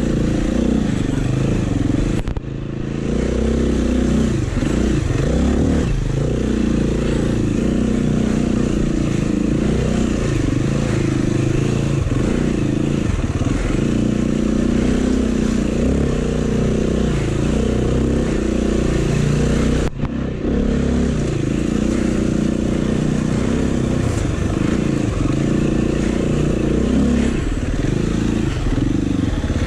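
Off-road dirt bike engine revving up and dropping back again and again as the throttle is worked over rough trail, heard from on the bike. The sound breaks briefly about two seconds in and again about twenty seconds in.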